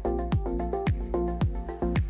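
Background music: an electronic pop track with a steady kick-drum beat a little under two beats a second, with claps and held chords over it.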